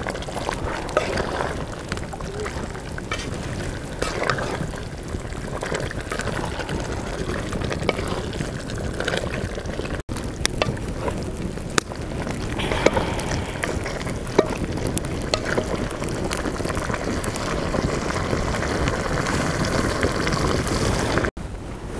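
Chicken, onions and broth sizzling and bubbling in a pot over a wood fire, stirred with a wooden spatula that scrapes and knocks against the pot now and then.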